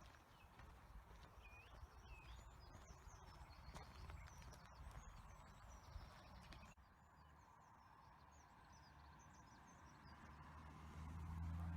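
Faint birdsong: scattered small-bird chirps and trills over quiet countryside background. The background drops abruptly about two-thirds of the way through, after which the chirping continues more faintly.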